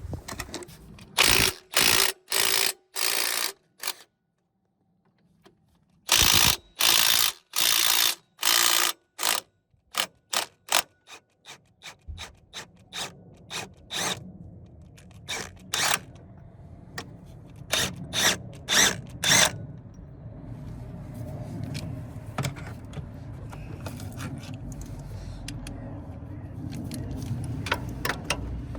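Hand ratchet wrench worked in quick short strokes, each back-swing giving a burst of ratchet clicking, as bolts are undone or run in during a timing belt job. The strokes come in runs with a pause about four seconds in, and a low steady hum sits underneath from about halfway.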